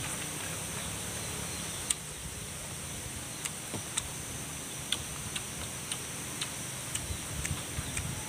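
Sharp, irregular mouth clicks and lip smacks from chewing food, roughly two a second from about two seconds in, over a steady high-pitched whine in the background.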